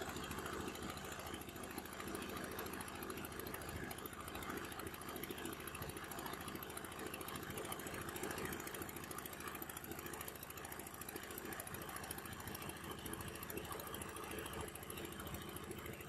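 Wooden fishing boat's engine running steadily under way, heard from on board, with a fast even beat that does not change.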